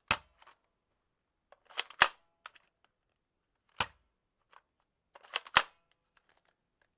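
Weapon sound effects: short, sharp gun-like cracks with little ringing after them. The first comes singly, then a pair about a quarter second apart, another single crack, and another pair, with faint clicks in between.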